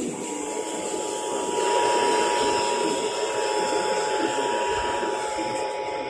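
Emergency Alert System attention signal from an AM radio broadcast: two steady tones sounded together, beginning about a quarter second in, over a steady hiss of AM reception.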